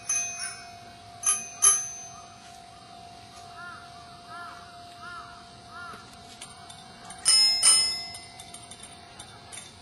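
Small high-pitched bells struck in short groups, each stroke ringing on briefly: a few strokes at the start, two more a little after a second in, and a cluster of about four around seven seconds in. Between them a bird calls repeatedly, about twice a second.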